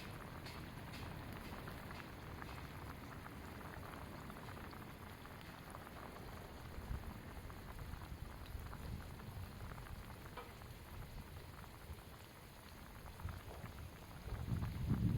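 Campfire cooking: a steady low hiss with many small crackles and pops, as of a wood fire with food simmering or sizzling over it. A louder low rumble, like wind on the microphone, comes in near the end.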